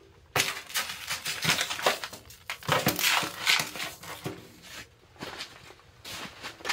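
Metal camping pot packed with snow set down and shifted on a steel wood-stove top: bursts of gritty scraping and crunching with a few short metallic rings for about four seconds, then quieter.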